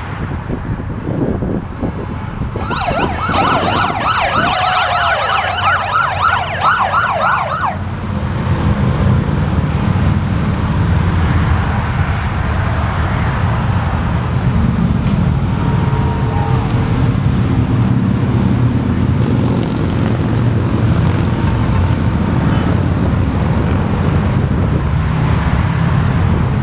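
A siren yelping fast, rising and falling about three times a second, for roughly five seconds a few seconds in. Then a steady low rumble of many motorcycle engines and highway traffic.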